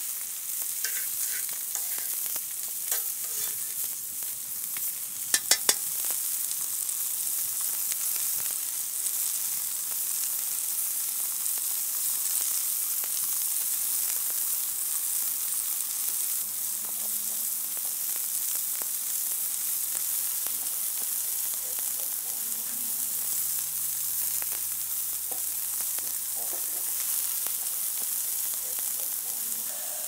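Food sizzling steadily in hot fat, a continuous high hiss, with three sharp clicks about five seconds in.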